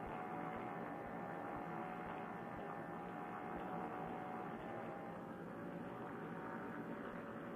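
Steady drone of a paramotor trike's engine in flight, heard muffled and thin through a Bluetooth headset microphone, with a few steady tones running through it.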